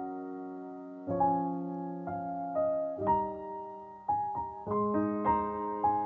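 Background piano music: unhurried notes and chords that ring and fade, coming a little faster in the second half.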